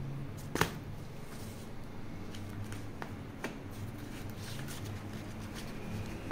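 Paper magazines being handled and their pages turned: rustling paper and soft knocks, with a sharp tap about half a second in and a few lighter clicks a couple of seconds later.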